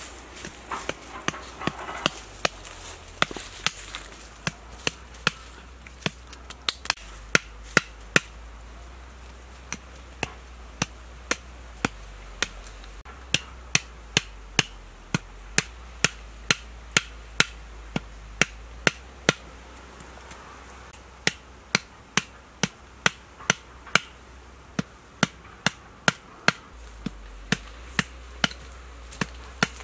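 Machete blade striking the tops of short wooden stakes over and over, about one and a half sharp blows a second, with a couple of brief pauses, as the stakes are driven into the ground.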